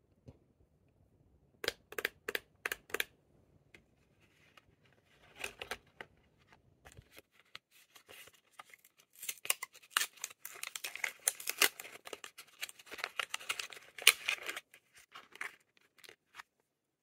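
Lip balm packaging being unwrapped by hand: a handful of sharp clicks about two seconds in, then a long stretch of crinkling and tearing of the wrapping that stops near the end.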